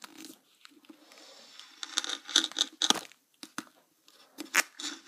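Plastic packaging being cut and torn open by hand: irregular crinkling and rustling with a few sharp clicks, busiest about two to three seconds in.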